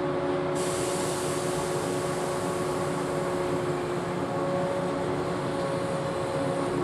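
Electric multiple-unit local train at a station platform, running a steady hum with several held tones. A hiss comes in sharply about half a second in.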